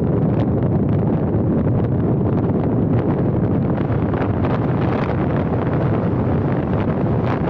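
Steady wind rumble on the microphone of a moving car's camera, mixed with road and traffic noise.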